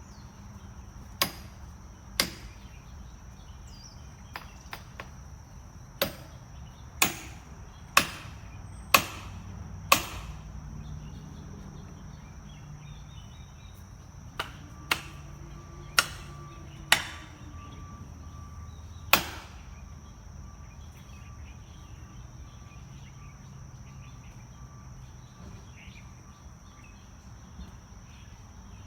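A series of sharp single knocks or chops, about one a second in two runs, with a pause between them. Under them is a steady high-pitched tone.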